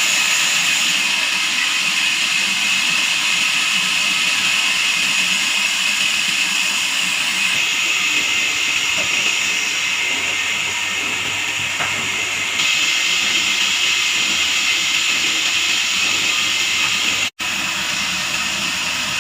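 Sawmill band saw blade cutting through a log: a loud, steady hissing whine that breaks off for an instant near the end.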